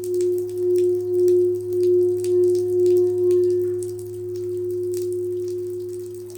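Crystal singing bowl ringing one sustained tone whose loudness pulses about twice a second, then softens and steadies about four seconds in, over a low steady hum.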